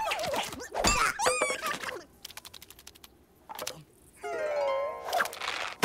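Cartoon sound effects over music: a thud with comic squeaky character noises that bend in pitch in the first two seconds, then a gliding vocal sound about four seconds in.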